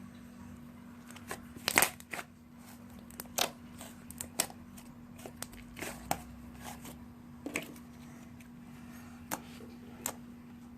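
Homemade slime being squeezed and worked, making irregular sticky pops and crackles. The loudest cluster comes about two seconds in.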